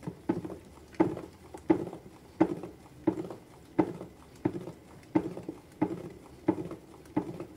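A stirrer worked back and forth through a plastic bucket of liquid soap mixture, knocking against the bucket in a steady rhythm of about three strokes every two seconds, with the liquid sloshing.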